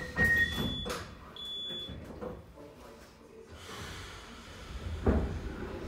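Metrovagonmash 81-717 metro car's door-closing warning tone, a high steady beep switching on and off over the first two seconds, then the doors shutting with a single loud thud about five seconds in.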